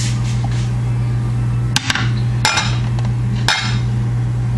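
Kitchen bowls knocking and clinking: three sharp knocks as a bowl is taken out and set down, over a steady low electrical hum.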